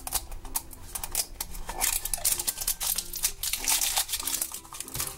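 Plastic wrapper being peeled and torn off a toy blind capsule, crinkling and crackling in quick irregular bursts, with faint background music.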